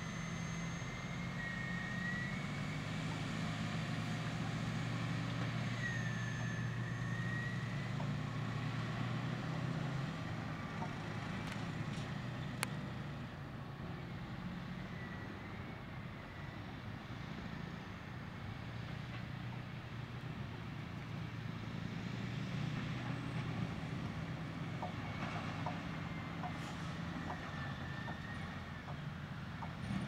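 Diesel engines of a Caterpillar 631G wheel tractor-scraper and a bulldozer working: a steady low drone with a high whine that wavers in pitch, a little quieter near the middle. One sharp click about twelve seconds in.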